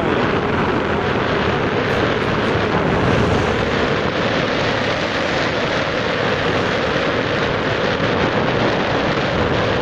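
Steady rush of wind over the microphone of a moving motorbike, mixed with its running engine and tyre noise.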